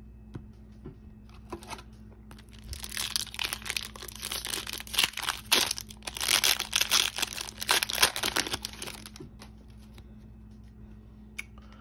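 Foil wrapper of a trading card pack crinkling and tearing as it is ripped open by hand, a dense crackle from about two seconds in until about nine seconds in, followed by a few soft handling clicks as the cards are slid out.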